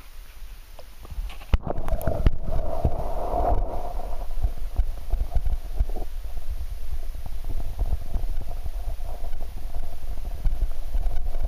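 Underwater rumble of lake water moving around a submerged camera, thick with small knocks and thuds and with a faint steady hum above it, coming in suddenly about a second and a half in.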